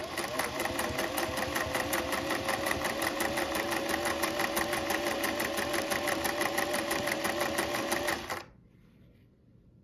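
1950s Singer Slant-O-Matic sewing machine running at a steady, fast pace, sewing a zigzag stitch at a short stitch length with the needle beating rapidly. It stops about eight seconds in.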